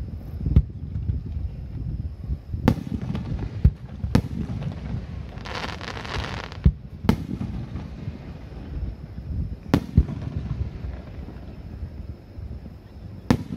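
Aerial fireworks shells bursting in a display: about eight sharp booms at uneven intervals, each followed by a low rolling rumble. About halfway through, a burst of crackling stars fizzles and pops for about a second.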